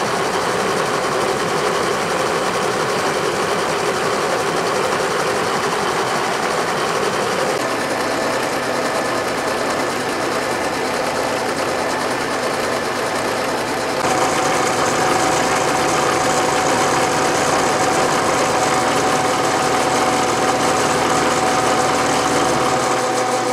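Vertical milling machine running, its 90-degree solid carbide V end mill cutting a V-groove into a steel vise jaw plate. The noise is steady, and its tone changes twice, about a third and about two-thirds of the way in.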